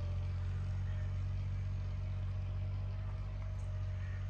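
A steady low mechanical hum, like a motor running, with a faint thin tone above it.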